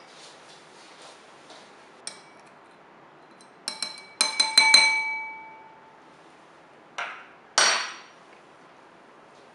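Metal spoon stirring gelatin water in a ceramic bowl, clinking against the bowl in a quick run of about six ringing clinks in the middle. Two duller knocks follow near the end.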